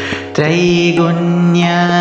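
Devotional background music of sustained, held drone-like tones, with a sudden strike about half a second in, after which the tones carry on.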